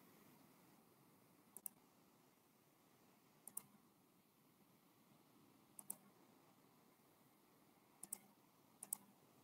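Near silence broken by five faint pairs of quick clicks, spaced a couple of seconds apart, like computer mouse double-clicks.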